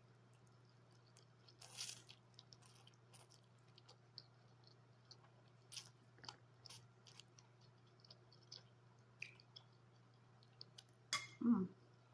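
Close-up mouth sounds of someone chewing a mouthful of loaded spaghetti: scattered wet smacks and clicks, loudest near the end, where a short pitched mouth sound follows. A steady low hum runs underneath.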